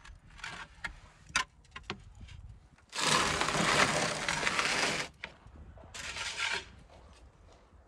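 A few light clicks, then a long scrape of about two seconds and a shorter one about a second later: a metal baking tray and wooden peel being slid across the stone floor of a wood-fired oven.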